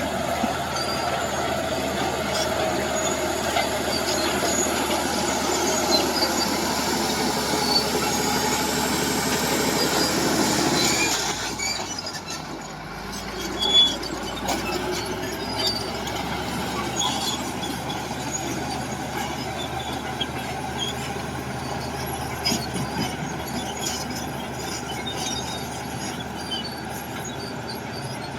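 A tracked earth-moving machine's diesel engine running under load, with high squealing and clanking from its steel tracks. About 11 seconds in the sound drops suddenly, then carries on more evenly with scattered metallic clanks.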